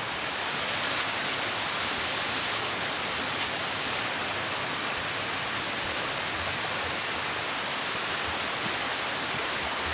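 Small mountain stream running steadily, an even rushing hiss of water.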